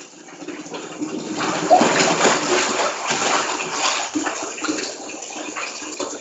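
A big splash of bathwater as a person slips and falls into a full tub: a noisy rush of water that starts about a second and a half in and lasts a couple of seconds before settling into smaller sloshing.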